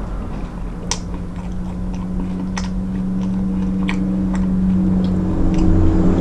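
Close-up chewing of a crispy fried pie, with crunchy clicks at irregular intervals over a steady low hum.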